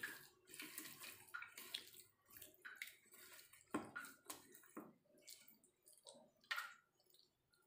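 Hands squishing and turning marinated chicken drumsticks in a steel bowl: faint, irregular wet squelches and slaps.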